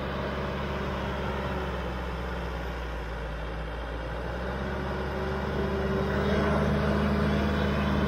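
John Deere 450J crawler dozer's four-cylinder diesel engine running steadily as the machine travels on its tracks, growing louder toward the end as it comes closer.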